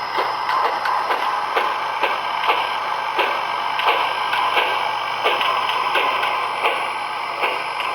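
Steam locomotive exhaust chuffing slowly and a little unevenly, about two chuffs a second, over a steady hiss.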